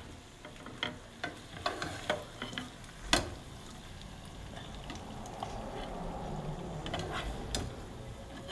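A metal serving spoon clinking and scraping in a pot as creamy penne in a butter, cream and cheese sauce is scooped out onto a plate. Scattered sharp clinks, the loudest about three seconds in, sound over a soft sizzle from the sauce, still hot from boiling.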